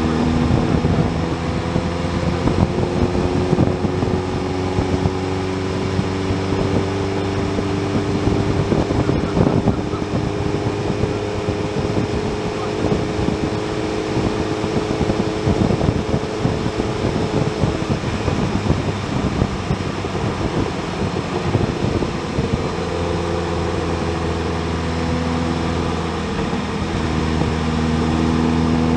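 Motorcycle engine running at road speed under the rush of riding noise, its note drifting slowly up and down with the throttle. Near the end the note climbs as the bike accelerates.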